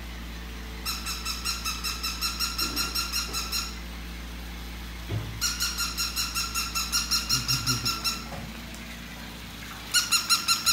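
Plush electronic toy dog giving out rapid, high-pitched electronic yips, about five a second, in three bursts of roughly three seconds with short pauses between.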